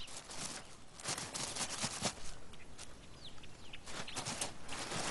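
Cape ground squirrel scraping and digging in dry, loose sand with its forefeet: an irregular run of quick, scratchy rustles as it clears out a dust-bath hollow.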